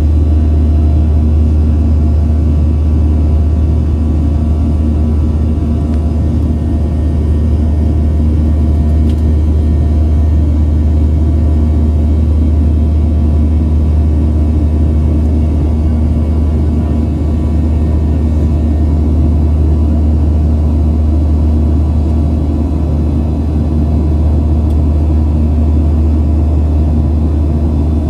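Steady cabin drone of a Boeing 737 airliner in flight: turbofan engine and airflow noise heard inside the cabin, a loud deep hum with a few steady tones above it.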